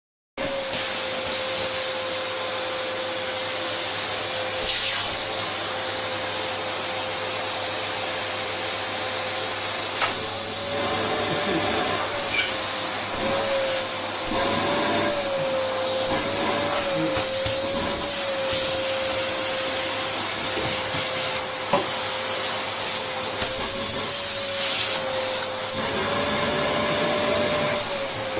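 Vacuum cleaner running continuously with a steady motor whine that wavers up and down in pitch now and then. A few short knocks are heard over it.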